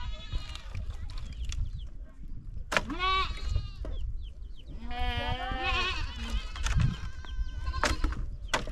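Goats bleating: two quavering calls, a short one about three seconds in and a longer one a couple of seconds later.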